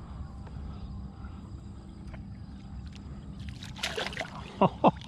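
Hooked Australian bass splashing at the surface beside a kayak during the fight, over a low steady rumble. Near the end come four short, loud sounds, each falling quickly in pitch.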